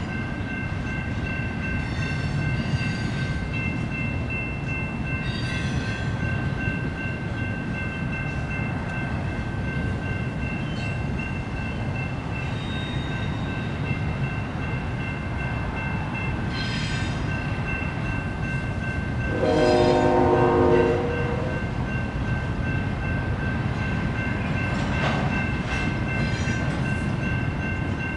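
BNSF intermodal freight train rolling past: a steady rumble of wheels on rail, with thin, steady high tones held over it and a few brief clatters. A horn sounds once, for about a second and a half, about twenty seconds in.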